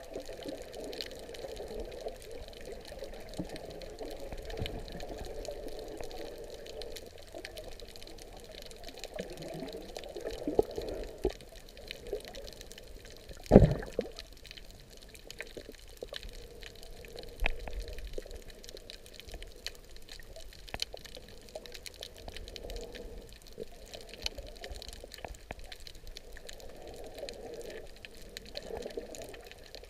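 Underwater sound picked up by a camera held under the sea while snorkeling over a reef: muffled, uneven sloshing and rushing of water with scattered faint crackling clicks, and one sharp thump about halfway through.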